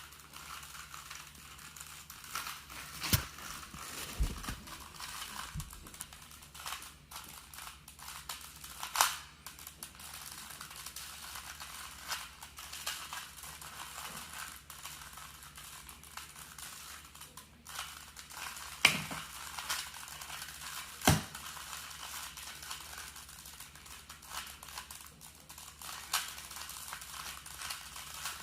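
Plastic 2x3 twisty puzzle being turned by hand: a steady run of small plastic clicks and rattles, with a few louder clacks now and then.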